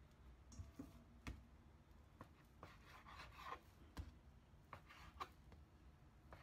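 Faint, irregular taps of a knife blade against a plastic cutting board, with soft rubbing and rustling as bread dough is cut into pieces and handled.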